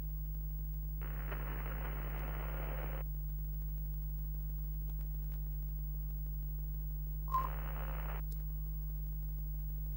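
Steady low electrical hum with two bursts of static hiss, the first about a second in lasting two seconds, the second shorter near the end and opening with a short beep, the loudest moment.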